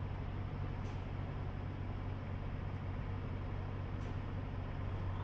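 Semi truck's diesel engine idling with a steady low hum.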